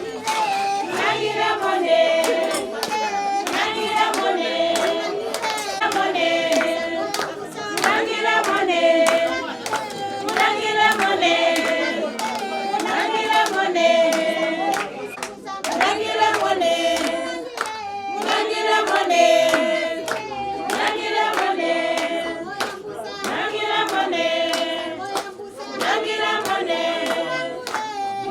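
A group of people singing together, repeating a short phrase over and over, with steady rhythmic hand clapping.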